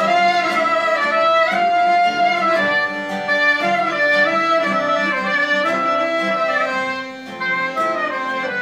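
Live trio of clarinet, accordion and classical guitar playing a melodic piece together, sustained reed notes over plucked guitar, with a brief drop in volume about seven seconds in.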